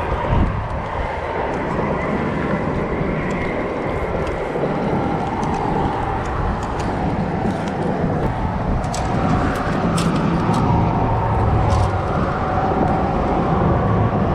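Steady rumble of passing road traffic, even and continuous, with a few faint short clicks.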